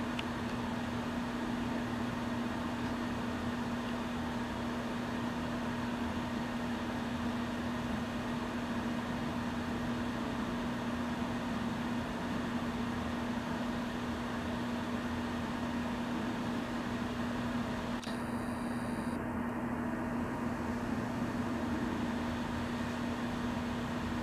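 Steady machine hum with a constant low-pitched tone and a fainter higher one, unchanging throughout. A brief high-pitched sound comes about eighteen seconds in.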